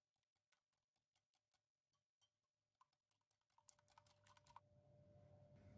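Wire whisk beating eggs in a glass bowl, very faint: a rapid run of light clicks of the whisk against the glass, stopping about four and a half seconds in.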